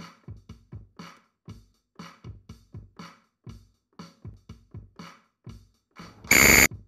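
Quiz countdown timer sound: a rhythmic electronic ticking beat of short clicks, a few a second, as the seconds run down. About six seconds in, a loud, bright electronic tone sounds for about half a second, marking the end of the countdown and the answer reveal.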